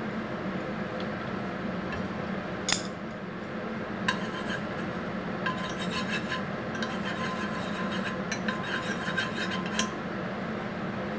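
Ginger and shallot frying in hot oil in a nonstick pot, crackling from about four seconds in, while a utensil stirs and scrapes in the pot. A sharp click comes a little before, and a steady low hum runs under it all.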